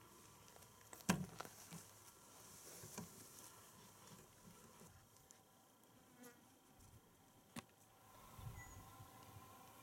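Faint insect buzzing in a near-silent stillness, broken by a few small clicks or knocks, the loudest about a second in.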